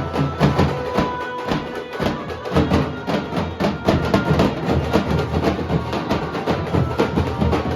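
Nasik dhol drums played in a fast, continuous rhythm, with a heavy low beat and sharp high strokes. A few held higher tones sound over the drumming.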